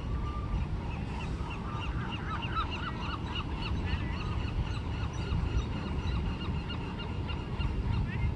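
Many short, repeated honking animal calls from a group, overlapping each other from about a second in, over a steady low rumble.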